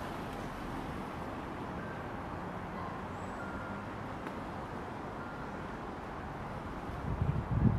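Steady hum of distant road traffic, with a low rumble of wind on the microphone about seven seconds in.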